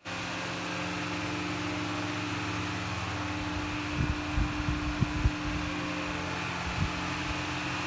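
A steady machine hum, like a running fan, holding a few fixed pitches. Several short, dull low thumps come through it in the middle.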